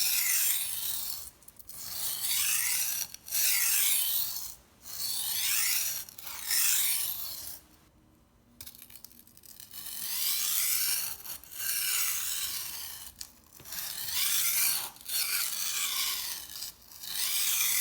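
Kitchen knife blade stroked across a water-soaked coarse whetstone: about ten gritty rasping strokes, roughly one every one and a half seconds, with a short pause about eight seconds in.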